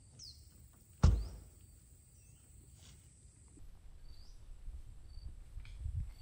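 Jungle ambience: scattered short bird chirps and whistles over a steady high insect drone. A single sharp knock about a second in, louder than anything else, and a few soft low thuds near the end.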